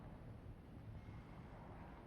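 Faint, steady background noise with a low rumble and no distinct sound events.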